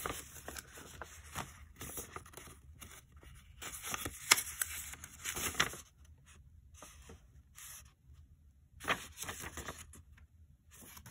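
Sheets of paper rustling and crinkling as they are handled and leafed through by hand, with a sharp crackle about four seconds in. It is quieter from about six seconds, with one more brief rustle near nine seconds.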